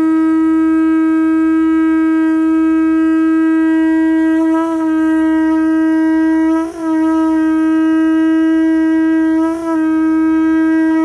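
A hand-held horn blown by mouth as one long, loud, steady note, with three brief wavers in the pitch: about a third of the way in, around the middle, and near the end.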